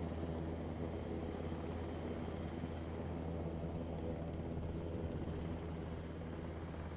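Boeing 737-800's CFM56-7B turbofan engines running at take-off thrust during the take-off roll: a steady jet engine noise with a deep hum and a layer of steady whining tones over a hiss.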